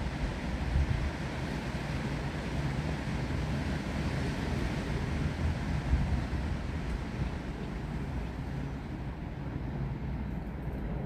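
Wind blowing through trees, a steady hiss with low rumbling gusts buffeting the microphone, strongest about a second in and again about six seconds in.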